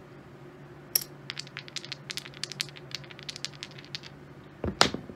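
Poker chips clicking against one another as they are picked up and stacked by hand on a felt craps layout: a quick run of small clicks, with a sharper knock about a second in and a louder clatter near the end.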